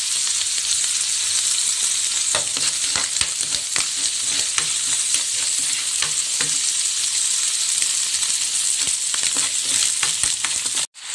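Chopped onion sizzling in hot oil in a frying pan, with a metal spoon clicking and scraping against the pan as it stirs. The sound cuts out for a moment near the end.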